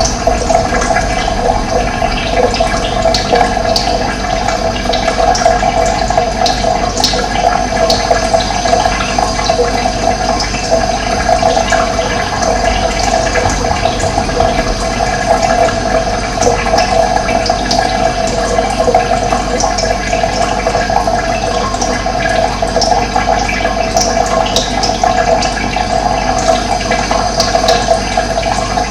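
Running water splashing and rushing steadily, like a small stream or cascade, with short high bird chirps scattered over it.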